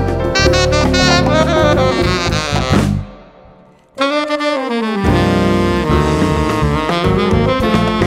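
Tenor saxophone playing a jazz line over a Latin jazz band with drum kit, bass and percussion. About three seconds in, the band stops dead for about a second. A falling phrase then comes in, and the full band is back about a second later.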